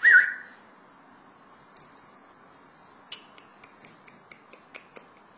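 A short, loud high-pitched squeak opens, then a run of light clicks, about five a second, from a pug's claws tapping on a wooden tabletop as it shifts its feet.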